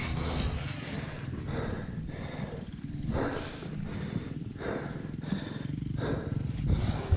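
Heavy breathing of a motocross rider inside the helmet, a breath about every second and a half, over a low steady rumble.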